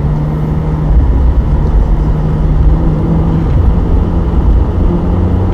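Ferrari convertible driving with the top down: the engine running at a steady cruise, its note shifting slightly a couple of times, under a heavy rumble of wind on the microphone.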